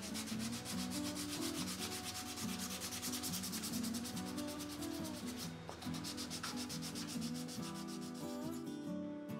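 Wood being sanded with quick, evenly repeated abrasive strokes, scratchy and continuous, thinning out near the end.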